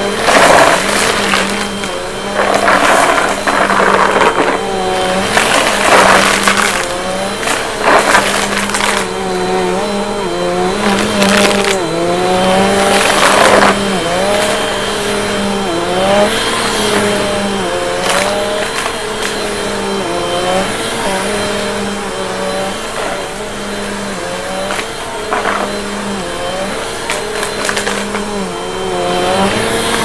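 Bissell PowerForce upright vacuum cleaner running on carpet, its motor hum dipping in pitch and recovering every couple of seconds as it is pushed back and forth. Small debris crackles and rattles up into it, most of all in the first half.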